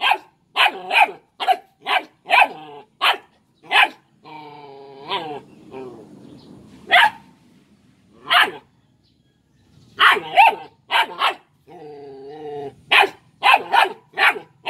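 Belgian Malinois puppy barking at a coconut shell in short, sharp yaps, in quick runs broken by pauses. A longer low growl comes twice, about four seconds in and again near twelve seconds.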